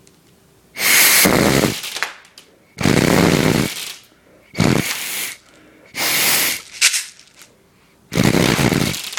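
Five hard bursts of air, each under a second, driven through a homemade BB gun made from a medicine bottle with a pen-tube barrel, each firing BBs, with a short sharp tick near the middle.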